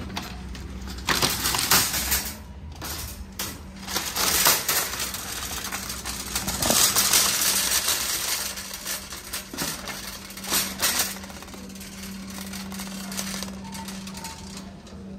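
Metal shopping cart rattling and clattering as it is pulled from a stack and pushed along, in several loud bursts over a steady low hum.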